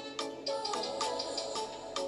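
Background music with a steady beat of short struck notes, about three a second.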